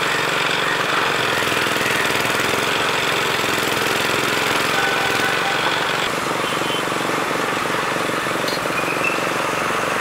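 Sugarcane juice crusher running, its geared steel rollers rattling steadily while crushing cane.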